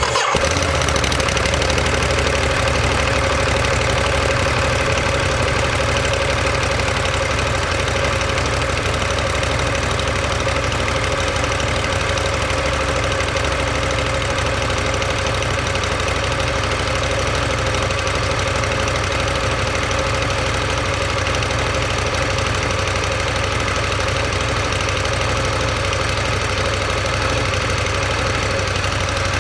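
Ducati Monster 1200S's L-twin engine idling steadily, heard through a microphone mounted just above the muffler, so the exhaust note dominates.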